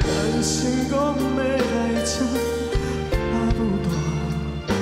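A man singing a slow Taiwanese Hokkien ballad into a handheld microphone, his voice carried over sustained instrumental backing.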